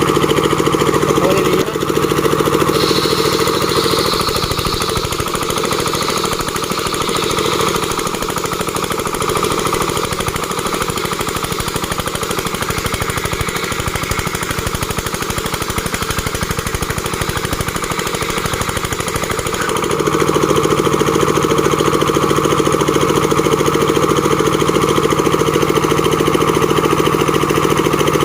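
Engine-driven board-making machine running steadily. From about two seconds in its steady note gives way to a rougher, rattling sound, and at about twenty seconds the steady running note returns.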